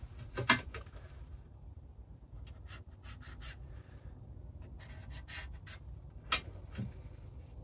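Felt-tip marker pen scratching short strokes across the steel face of an old table saw blade, with a few sharp clicks from the metal parts being handled.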